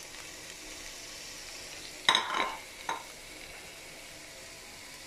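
Chopped onion and diced red pepper sizzling steadily in a frying pan, with a sharp clatter about two seconds in and a lighter knock just under a second later.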